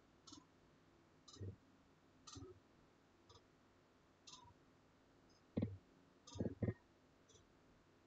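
Faint, scattered clicks of a computer mouse, about a dozen, with a few louder, duller knocks about two-thirds of the way through.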